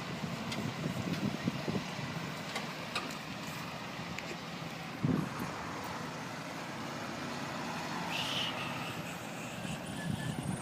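Steady vehicle engine noise with scattered faint clicks and a single knock about five seconds in.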